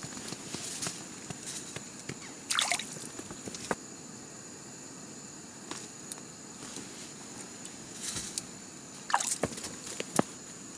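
Small sounds of an ice-fishing rod being handled over a slush-filled hole: scattered short wet clicks and squelches, two of them with a quick falling squeak, and one sharp click near the end, over a thin steady high-pitched tone.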